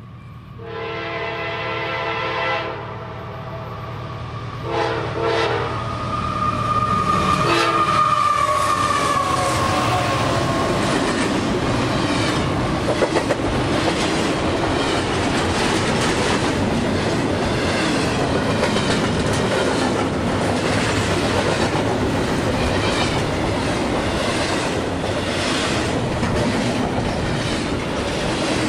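A diesel freight train's air horn blows one long blast and then two shorter ones as it approaches. The locomotive then passes, and a double-stack container train follows, rolling by with a steady rumble and the rhythmic clickety-clack of its wheels.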